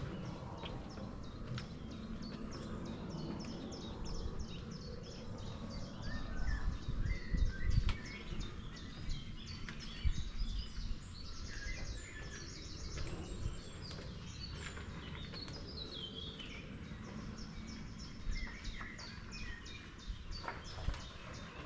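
Several woodland birds singing and chirping with quick repeated high notes over a low outdoor rumble. A series of low thumps stands out about six to eight seconds in and again around ten seconds.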